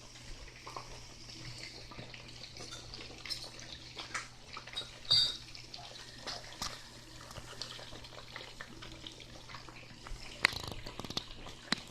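Kitchen handling sounds: scattered light clicks and knocks of utensils and containers, with a brief ringing clink about five seconds in and a sharper knock near the end, over a steady faint hiss.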